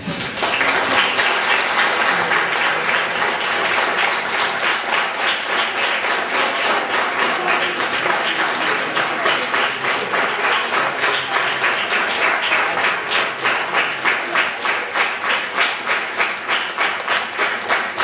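Audience applauding in a hall, starting suddenly at full strength, then settling into steady rhythmic clapping in unison over the second half.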